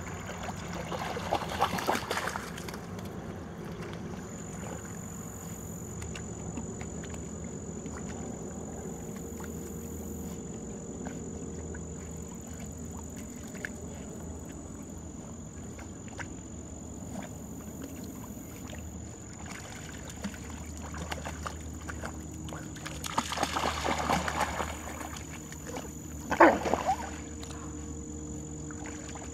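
Water sloshing and splashing as dogs wade and swim through shallow pond water, louder about a second in and again near the end, with one brief sharp sound shortly before the end.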